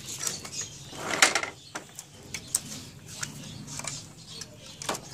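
Hands handling the printer's small plastic parts and wiring while fitting a sensor: scattered light clicks and rustles, with one louder plastic clack about a second in.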